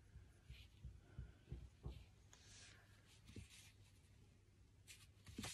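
Faint, intermittent scraping of a pointed wooden modelling tool carving a small clay figure held in the hand, with a few soft knocks and a slightly louder click near the end.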